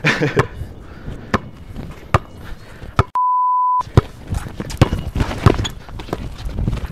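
A basketball dribbled on an outdoor concrete court, with sharp bounces about once a second. About three seconds in, a steady censor bleep of under a second replaces all other sound.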